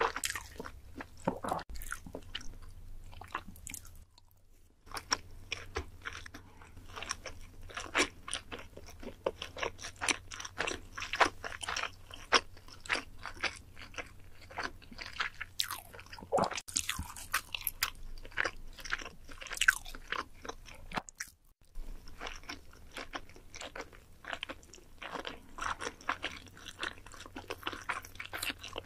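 Close-miked chewing of sushi such as salmon nigiri, with dense, irregular wet mouth clicks and squelches. It breaks off briefly about four seconds in and again about twenty-one seconds in.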